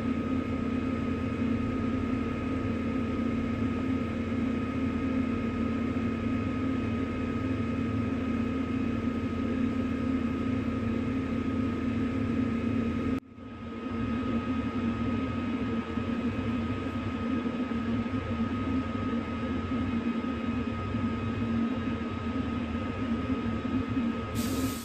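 Tow truck's engine running steadily, a constant hum with a thin high whine over it. It drops out abruptly for a moment about halfway through, then resumes unchanged.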